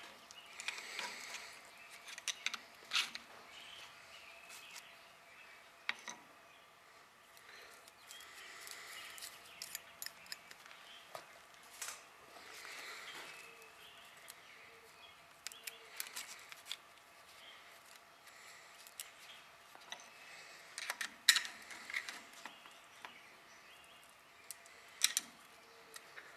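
Quiet, scattered metallic clicks and clinks of hand tools and thin steel shims being handled on an Allis-Chalmers D-series power director clutch, over a faint steady hum.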